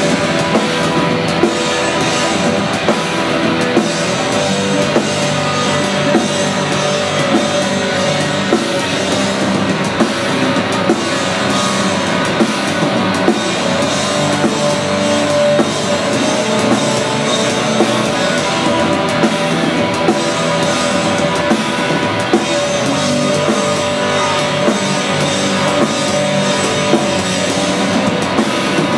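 Live black metal band playing at full volume: dense distorted guitars over a busy drum kit, continuous throughout.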